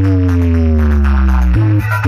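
Loud electronic dance music with heavy bass, played through a large outdoor DJ speaker stack during a sound check. A synth line glides steadily downward in pitch for about a second and a half, then short chopped notes start again near the end.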